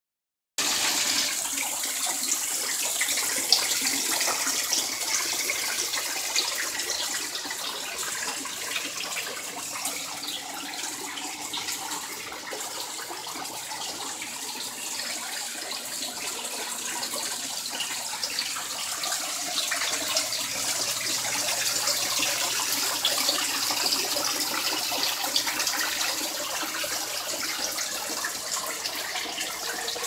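Custom-built rock waterfall pouring into a pond: a steady rush and splash of falling water.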